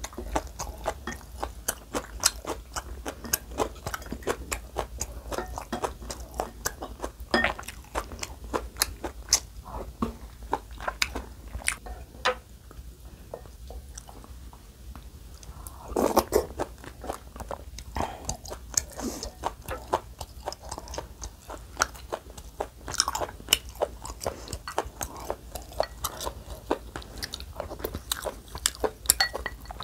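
Close-miked chewing and wet mouth clicks of someone eating rice cake and dumpling soup, with a louder, longer stretch of eating noise about halfway through.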